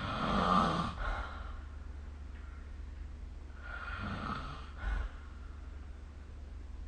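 A person snoring in sleep: a loud snore in the first second, then a weaker one about four seconds later, ending in a short snort-like burst.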